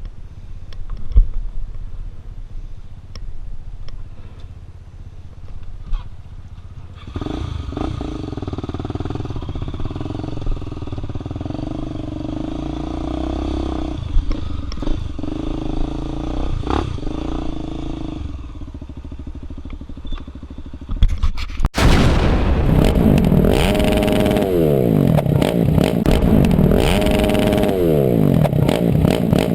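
Single-cylinder four-stroke trail motorcycle engine. It starts as a low rumble with a few knocks, runs steadily from about seven seconds in, then from about twenty-two seconds gets much louder, its revs rising and falling several times as the bike pulls away.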